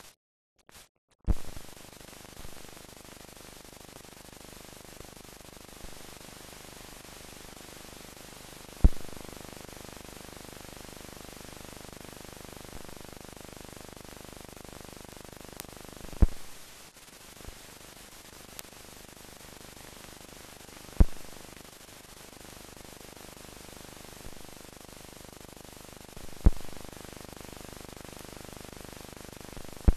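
Steady hiss of an old newsreel film soundtrack with no commentary. It starts with a pop about a second in, then sharp pops come every five to seven seconds, each dying away quickly.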